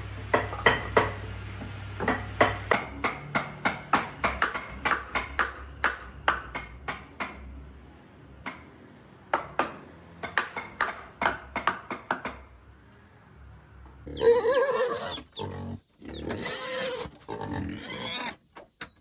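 A run of sharp knocks, about two to three a second, for some twelve seconds. After a short pause comes a series of animal cries.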